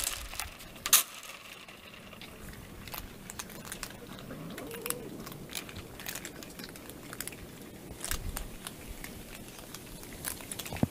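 A group of cats eating dry kibble off a wooden deck: scattered small crunches and clicks, with one sharper click about a second in.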